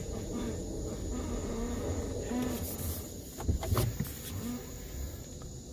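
Tesla Model X front suspension creaking over and over as the car turns at low speed, with a louder clatter of knocks about three and a half seconds in. The creaking is suspected to come from worn upper control arms.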